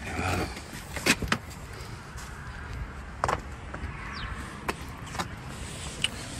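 Scattered sharp clicks and knocks from the interior of a Chevy Malibu being handled with its doors open, the loudest about a second in, over a steady low background rumble.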